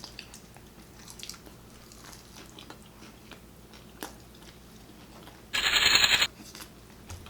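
Close-miked eating: quiet chewing and small mouth clicks from people eating sopes. About five and a half seconds in comes a loud, short crunching noise lasting under a second.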